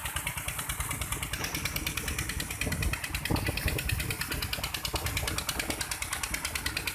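Old diesel engine driving an irrigation water pump, running steadily with a fast, even chugging beat. Water gushes from the pump's outlet pipe.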